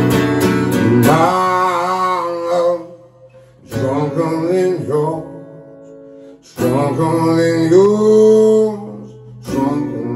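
A man singing over an acoustic guitar. The guitar is strummed steadily for about a second, then single chords are struck and left to ring under slow sung phrases, a new chord about every three seconds.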